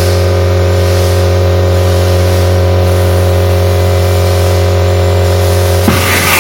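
Portable Multi-Vac industrial vacuum running with a steady hum while its 4-inch hose nozzle is buried in moist hay feed, building vacuum and drawing the material in slowly. Near the end the steady tone breaks up into a rush of air as the nozzle is moved in the pile.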